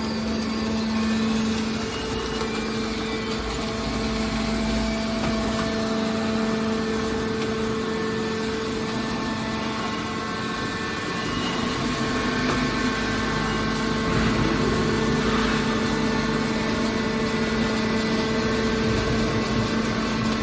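Hydraulic scrap car baler's power unit running, a steady mechanical drone with a constant hum, growing slightly louder about two thirds of the way through.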